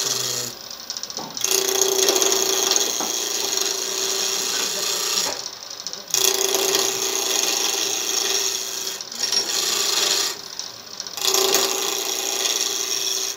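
Hand-held turning tool cutting a spinning wooden spindle on a Powermatic PM2014 wood lathe: a loud scraping hiss of wood being cut, with a steady hum under it. It breaks off for about a second three times as the tool comes off the wood.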